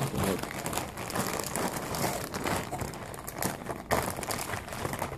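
Clear plastic bag of yellow K'nex connectors crinkling as it is handled, the loose plastic pieces shifting inside it, with many small crackles and clicks.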